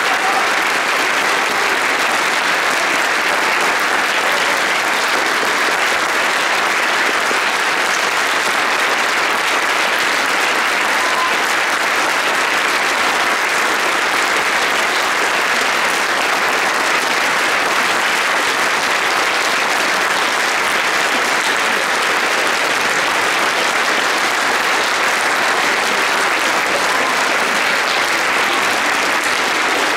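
Concert audience applauding, a dense, steady clapping.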